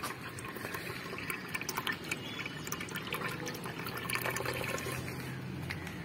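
Cold water running fast from the inlet pipe into a solar water heater's small float-valve inlet tank as it fills: a steady hiss with many small ticks of water.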